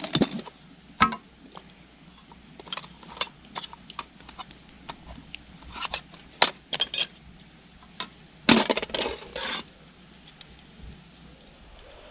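Clinks and clatters of an aluminium food tin and its lid being opened, set down and handled, with a utensil knocking and scraping in the tin. The sharp knocks come irregularly, with a louder, busier run of clattering about eight and a half seconds in.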